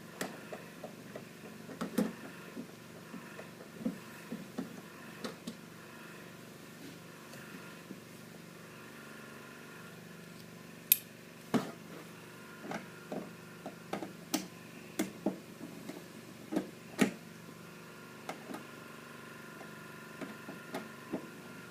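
Scattered small clicks and taps of a screwdriver and hands working screws out of an old printer's plastic housing, with two sharper clicks in the second half.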